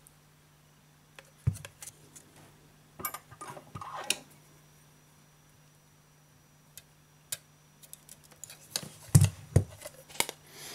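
Scattered small clicks and taps of metal tweezers and a phone's aluminium body being handled while a flex cable is unclipped from under the back cover. A busier run of louder knocks and rattles comes near the end as the phone is moved about.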